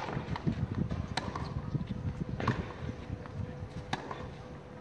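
Tennis rally on a clay court: racket strikes on the ball about every second and a quarter, four in all, the first the loudest.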